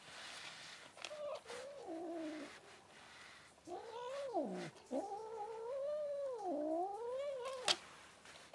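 A domestic cat gives drawn-out, wavering yowls while being stroked as she eats: a short one, then a falling one, then a long one. The cat is angry at being touched. A sharp click comes just as the last yowl ends.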